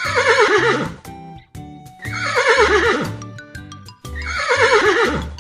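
Horse neighing three times, about two seconds apart; each whinny falls in pitch with a quavering shake. Light background music with a steady beat plays underneath.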